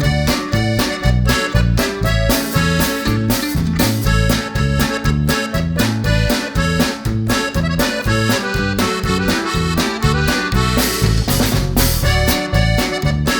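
Background music led by accordion over a steady bouncing bass beat, in a Latin American style.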